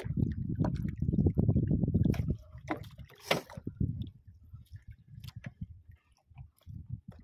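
Water sloshing and lapping against the hull of a small outrigger boat, heaviest in the first two seconds, with a few scattered knocks and clicks.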